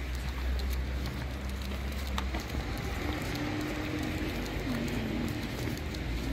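Steady rain falling on wet pavement, an even hiss with a low rumble underneath.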